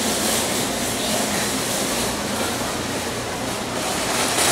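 Steady, even rumbling background noise with no distinct knocks or clicks.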